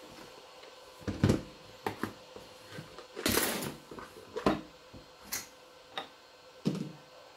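Handling noises of the miner and tools being moved: a string of separate knocks and clicks, with a brief scraping rustle about three seconds in, over a faint steady hum.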